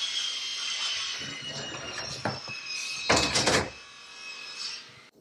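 Wooden cabinet drawer being pulled out on its runners: a long rolling, sliding rush with faint squealing tones, then a loud rattling clatter about three seconds in as it comes free.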